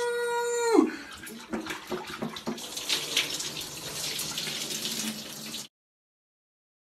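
A man's long imitated cow moo, which ends about a second in, followed by splashing water in a bathtub-shower that stops suddenly near the end.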